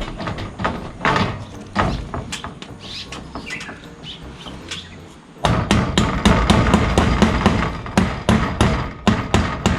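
Hammer blows, a few scattered strikes at first, then rapid repeated hammering from about halfway, several blows a second.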